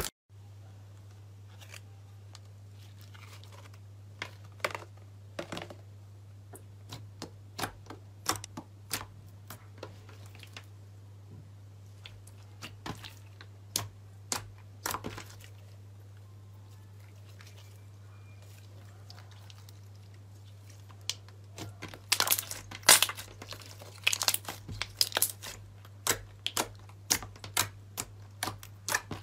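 Hands pressing and kneading a clear jelly slime, giving sharp crackling clicks and pops, sparse at first and becoming denser and louder about two-thirds of the way through, over a steady low hum.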